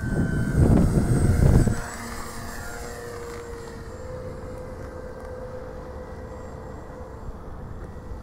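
Electric motor and propeller of a Parkzone Xtra 300 RC aerobatic plane flying high overhead: a faint, steady whine with slight shifts in pitch as it manoeuvres. Gusts of wind rumble on the microphone for the first two seconds.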